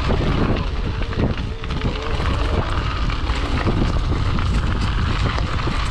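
Wind rushing over the microphone and tyre noise from a Mongoose Teocali mountain e-bike riding a trail, with frequent short knocks and rattles from the bike jolting over bumps.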